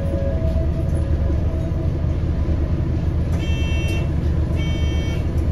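Bus engine and road rumble heard from inside the passenger cabin, steady and low. From about halfway in, a high electronic beep sounds in repeated pulses of under a second, about once every 1.2 seconds.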